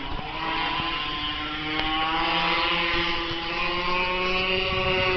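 Blata B1 minibike's small two-stroke engine held at high revs, its pitch climbing slowly and then easing off near the end.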